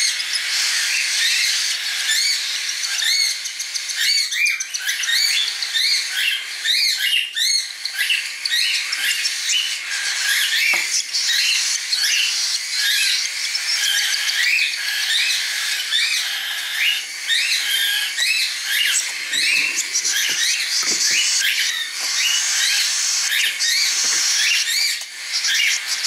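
Cockatiel chick begging while being hand-fed from a syringe: a fast, continuous run of short, high-pitched chirps, each rising and falling.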